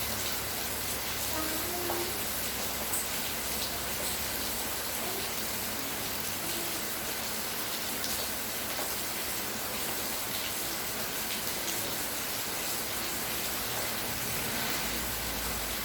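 Steady rain falling: an even hiss with a few sharper drop ticks now and then.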